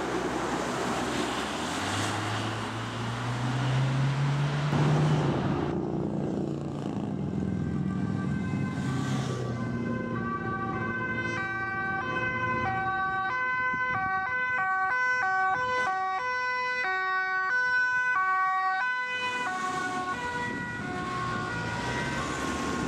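Dutch police vehicles on an emergency run: first a vehicle passing with its engine rising in pitch, then a police siren alternating between high and low notes, pausing briefly and starting again near the end.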